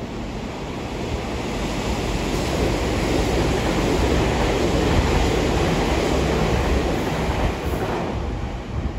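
A train running past on a nearby track: a rushing rumble that swells to its loudest about five seconds in and then fades.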